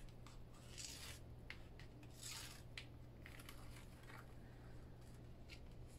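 Faint rustling and rubbing of white cardstock being peeled back and repositioned, its adhesive tape lifting off clear Duralar film, in a few short soft bursts over a steady low hum.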